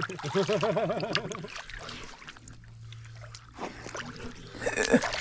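River water sloshing and lapping around a camera held at the surface, with a wavering, voice-like hum in the first second and louder splashing near the end.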